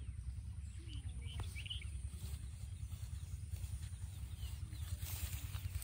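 Open-air rural ambience: a steady low rumble with a few faint bird chirps about one to two seconds in.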